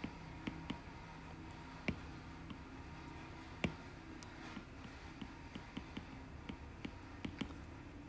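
Faint, irregular clicks and taps of a stylus on a tablet's glass screen during handwriting, over a low steady hum.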